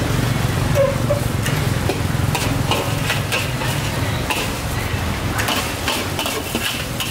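A utensil stirring and clattering in a cooking pan with a light sizzle of frying, many short clicks and knocks over a steady low hum.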